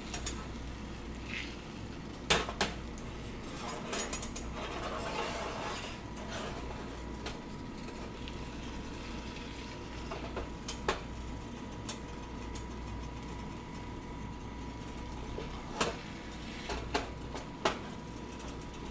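Spatula knocking and scraping against a frying pan as an omelette's edges are loosened, with a rattling stretch a few seconds in and sharp clicks at irregular intervals, the loudest about two seconds in.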